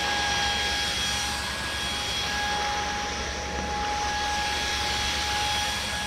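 Ecolumix 19 kPa cordless vacuum cleaner running steadily while vacuuming: a constant high motor whine over the rush of air being drawn through it.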